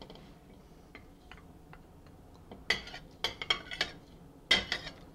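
A perforated metal skimmer clinking against a stainless steel soup pot and a plate as meat and vegetables are lifted out: faint light taps at first, a quick run of sharp clinks a little past halfway, and one louder clink near the end.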